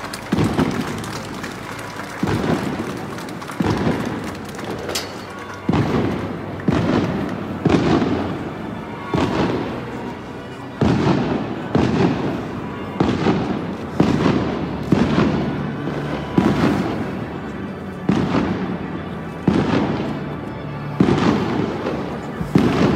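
Firecrackers going off one after another, about one bang a second, each sharp crack trailing off in a booming rumble.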